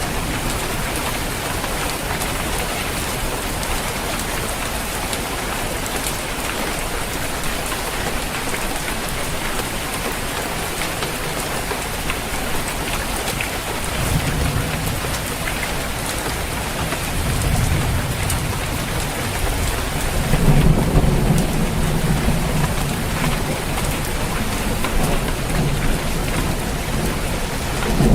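Steady rain pattering on a roof. Low thunder rumbles come in about halfway through and grow louder and longer in the last third.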